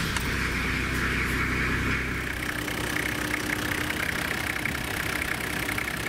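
Toyota Land Cruiser 80 engine running at idle just after starting, its newly fitted fan and air-conditioner belts turning so they can bed in before a final tension check. The engine note eases slightly about two seconds in.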